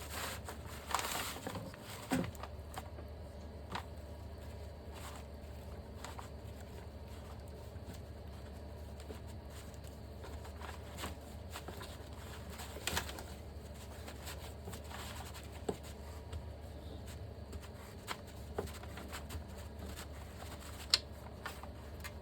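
Scattered light clicks and taps of hand tools and brake caliper parts being handled, over a steady low hum.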